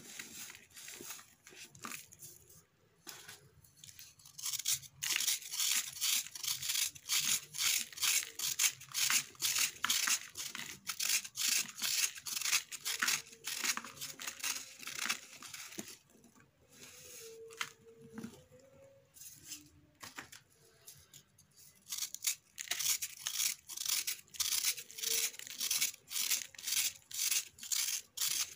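A blade scraping and shaving a dry sand-and-cement lump in quick repeated strokes, with the gritty powder crumbling away. The strokes are quieter at the start and pause for a few seconds a little past halfway.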